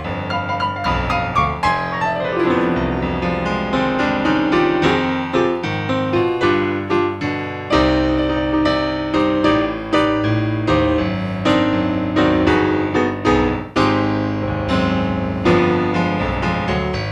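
Piano playing an instrumental solo in a jazz-blues song: many quick notes and chords over a low bass line, with no singing.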